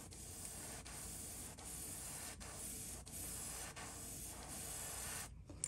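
Airbrush spraying paint: a steady hiss of air that dips briefly a few times and stops about five seconds in.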